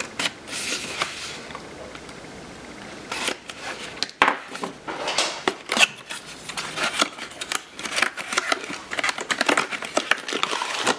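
Small cardboard box being opened by hand. A papery scrape about half a second in is followed by a dense run of rustles, taps and small clicks as the flap is worked open and the inner tray slid out.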